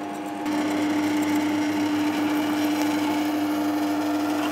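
Drill press motor running with a hollow-chisel mortiser fitted, giving a steady hum. About half a second in, the auger bit inside the square chisel starts boring into a wooden block, and a steady cutting noise joins the motor.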